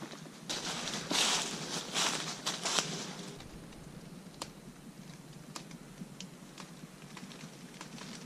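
Crunching and rustling in dry fallen leaves: a dense, crackly patch for the first three seconds or so, then only a few faint scattered ticks.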